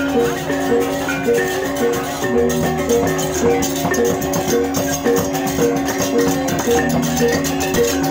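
Balinese baleganjur processional gamelan playing: two-headed kendang drums and clashing ceng-ceng hand cymbals over a steady, repeating pattern of pitched bronze notes and sustained low gong tones.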